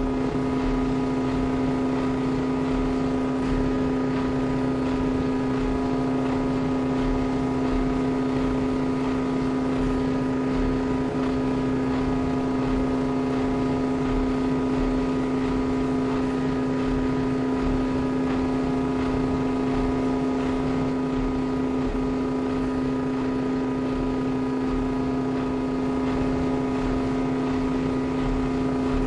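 Kenmore washing machine running with a steady motor hum that holds one pitch.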